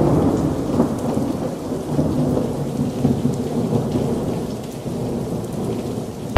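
Thunderstorm: a rumble of thunder over steady rain, loudest at the start and slowly dying away.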